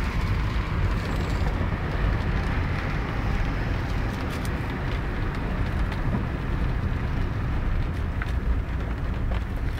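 Steady rushing noise of flash-flood water, with a few faint clicks.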